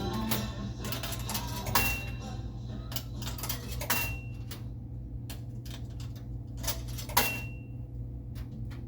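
Irregular sharp metallic clicks and clatter over a steady low machine hum, with a brief high beep after three of the clicks, about two, four and seven seconds in.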